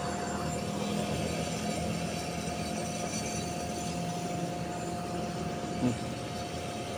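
Steady mechanical hum with a constant thin whine over it, like a motor running.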